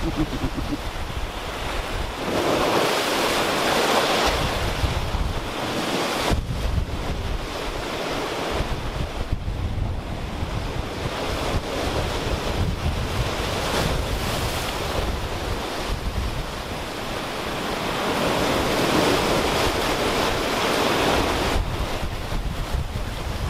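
Ocean surf breaking and washing over a ledge of black rocks, swelling louder a few seconds in and again near the end, with wind buffeting the microphone.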